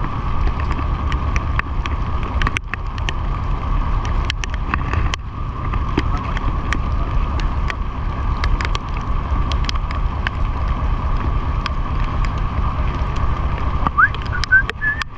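Boat engine running steadily under way, a constant low rumble with a steady whine above it, and wind on the microphone. Scattered short ticks and knocks come through throughout.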